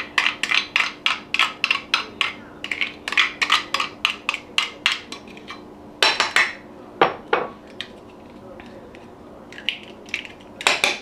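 A utensil tapping and scraping against a small glass jar as gremolata is spooned out onto fish. Quick clinks run at about four a second for the first five seconds, two louder knocks come around six and seven seconds in, and a few more clinks come near the end.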